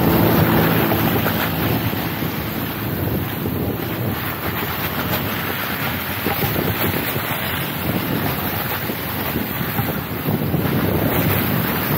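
Wind rushing over the microphone of a camera held out the window of a slowly moving Jeep Wrangler, with the Jeep's road noise beneath it.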